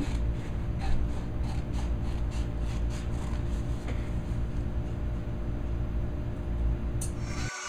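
Scissors snipping through newspaper, a few faint irregular snips over the first few seconds, over a steady low hum.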